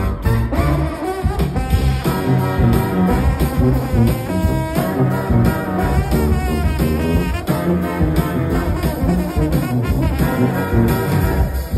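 Live brass band playing trombone and saxophones over a sousaphone and drum kit, with a steady drum beat throughout.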